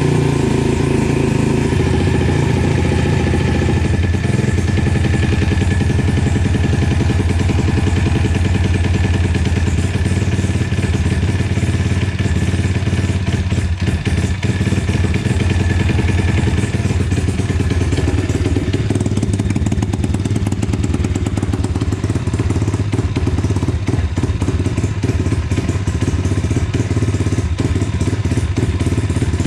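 SSR 170TX pit bike's single-cylinder four-stroke engine, freshly rebuilt with a 62 mm Tbolt big bore kit and a PE28 carburettor, running steadily on its first start after the rebuild. Its note changes about two seconds in and again about two-thirds of the way through as the idle is adjusted at the carburettor.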